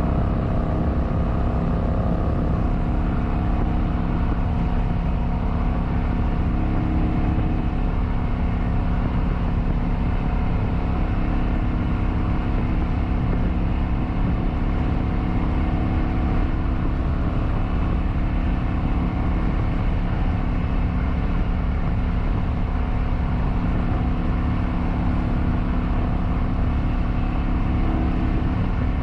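Kawasaki Vulcan 900's V-twin engine running steadily at cruising speed, under a continuous rush of noise.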